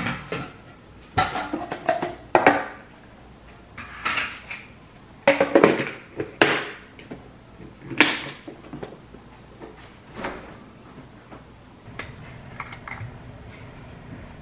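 Clear plastic produce-keeper box with a colander insert being handled: the lid is set on and pressed down in a series of separate plastic clacks and knocks. One of its locking clips is broken, so the lid won't latch on that side.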